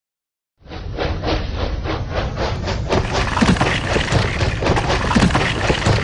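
Battery-powered toy train running on its track, a continuous rattle with rapid, even clicking and a low rumble, starting suddenly about half a second in.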